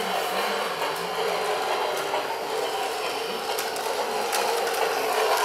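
New Bright Holiday Express toy train running around its track: a steady mechanical running noise of its small motor, gears and wheels, with a few sharp clicks.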